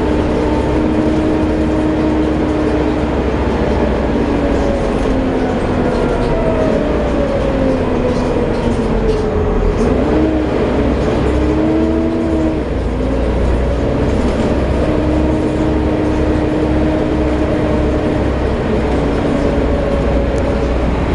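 Volvo B7TL double-decker bus running, its six-cylinder diesel droning under a loud vacuum-cleaner-like whine (the "Hoover" sound) that falls and rises in pitch several times with the bus's speed, dipping lowest around the middle.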